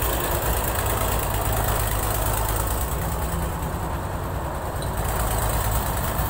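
Combine harvester's diesel engine running steadily, a continuous low hum as the machine drives off across the stubble.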